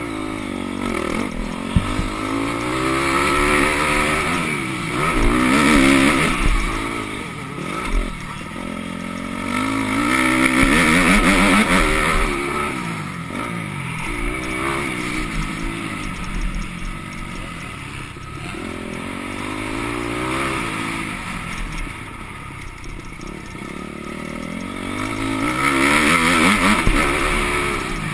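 Motocross bike's engine, heard from a helmet-mounted camera, revving up and dropping back over and over as the rider accelerates out of turns and shuts off for the next, loudest near the end.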